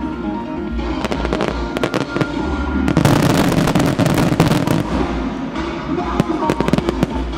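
Aerial fireworks bursting with sharp bangs and crackling over music played across the launch site. A dense run of crackling and bangs starts about three seconds in and lasts a couple of seconds.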